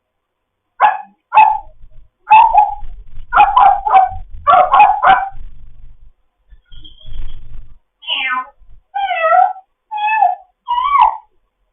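African grey parrot calling: a quick run of short, sharp calls in the first half, then four gliding, warbled whistle-like calls near the end.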